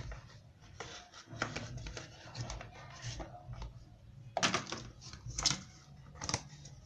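Scattered clicks and knocks of hand tools being handled, with two sharper clicks about four and a half and five and a half seconds in.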